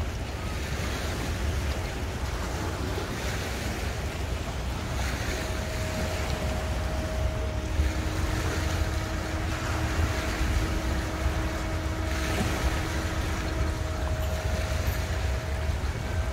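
Wind rumbling on the microphone over outboard-boat motors running on the water. A faint steady motor hum joins about five seconds in, and a lower one comes in briefly in the middle.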